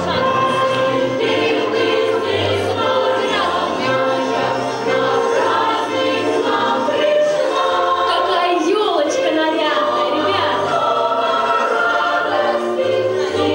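Music: a song sung by many voices together over an instrumental backing with a moving bass line.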